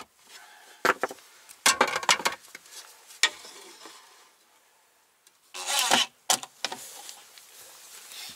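Plywood shelf unit knocking and scraping against the car's plastic interior trim as it is handled: a series of wooden knocks and rubs, with a longer burst of scraping about six seconds in.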